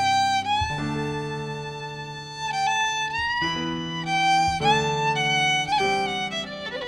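Background music: a fiddle playing a melody over held lower chords, with some plucked string accompaniment.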